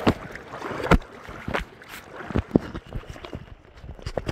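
Irregular sharp knocks and bumps, about seven in four seconds, over a steady rush of river water: handling noise against a phone in a waterproof case while a hooked bass is brought in by hand.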